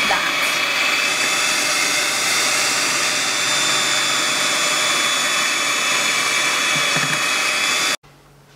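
Electric hand mixer running, its twin beaters whisking cake batter in a glass bowl: a steady motor whine that cuts off suddenly near the end.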